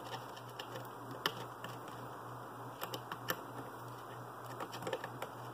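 Soldering iron held on an LED lead and wire joint: a few sharp ticks and faint crackles over a steady low hum, with a small cluster of crackles near the end.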